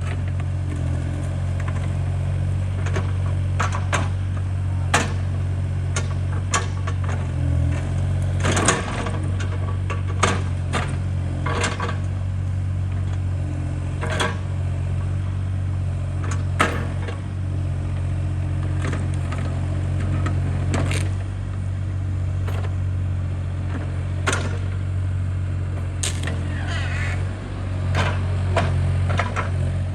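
An engine running steadily at idle, with irregular sharp knocks and clicks over it, a dozen or more across the stretch.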